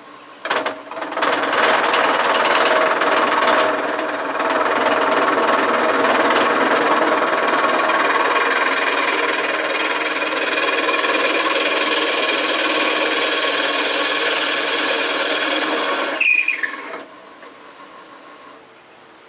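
Shopsmith 520 in drill-press setup running, a Forstner bit boring into a maple burl, for about fifteen seconds. It is then switched off and winds down with a brief falling whine.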